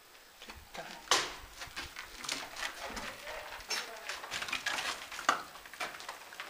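Paintball markers firing inside a concrete building, heard as irregular sharp cracks and knocks with a short room echo. The loudest crack comes about a second in, and another stands out near the end.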